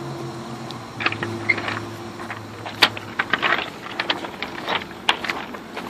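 Footsteps crunching on loose rock gravel, with irregular crunches starting about a second in, over a low steady hum that fades out about three seconds in.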